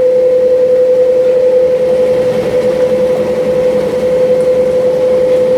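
Industrial food grinder running with a steady hum as it grinds food.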